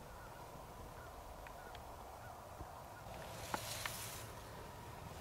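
Faint honking calls of distant birds. About three seconds in, rustling and a few sharp clicks as the camera is swung around.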